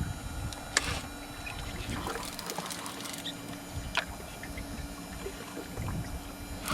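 Water trickling and splashing lightly around a small fishing boat, over a faint steady hum, with a few short sharp clicks: one about a second in and one about four seconds in.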